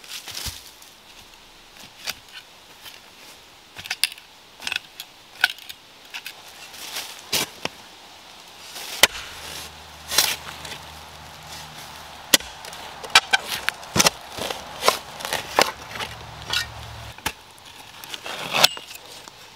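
Shovel digging into rooty, stony forest soil: irregular sharp chops and scrapes as the blade is driven into the ground and through roots. Near the end, exposed roots in the hole are cut with loppers.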